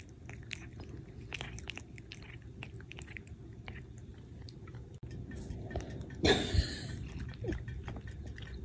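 A cat chewing and biting pieces of cooked chicken: a quick, irregular run of small clicks, with one brief, louder burst of noise a little past six seconds in.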